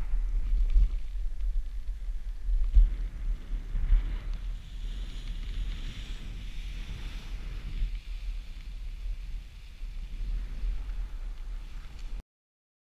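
Wind buffeting the camera microphone as a paraglider descends under a deployed Turnpoint Incross 120 reserve parachute: a gusty low rumble that swells and fades, then cuts off suddenly near the end.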